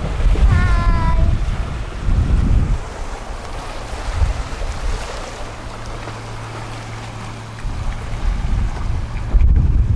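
Sea waves washing and splashing over shoreline rocks, with wind buffeting the microphone in gusts, strongest in the first three seconds and again near the end.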